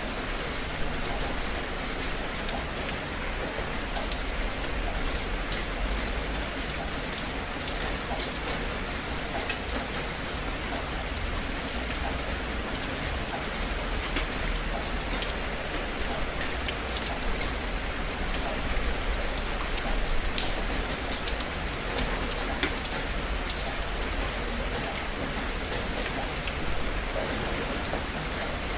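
Heavy rain falling steadily: a dense, even hiss with many close individual drops ticking sharply through it.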